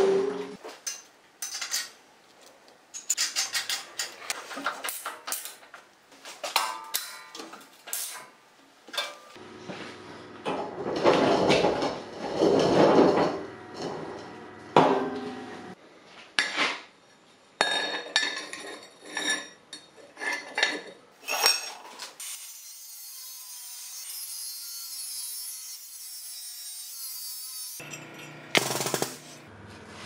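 Metal fabrication: sheet-steel parts of a wood-chipper housing knocking and scraping on a steel welding table, with short crackling bursts of welding. About 22 seconds in, a steadier hiss sets in for several seconds before the knocking returns.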